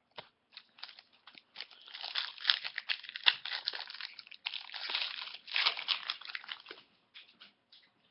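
Packaging crinkling and crunching in the hands, with scattered small clicks. The crinkling is dense from about a second and a half in until nearly the end, then thins back to a few clicks.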